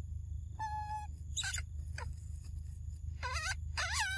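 A series of short animal calls: one held, clear whistled note about half a second in, two quick falling chirps after it, then two wavering, quavering calls near the end, over a steady low rumble.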